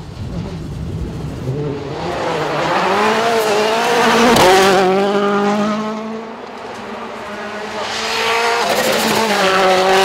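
Rally car engine at full throttle, its pitch climbing through the gears, easing off for a moment about two-thirds of the way in, then revving up again near the end.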